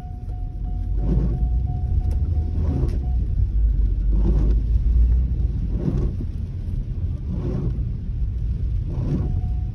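Opel Astra cabin noise while driving in rain: a steady low engine and road rumble, with a soft swish about every one and a half seconds from the windscreen wipers.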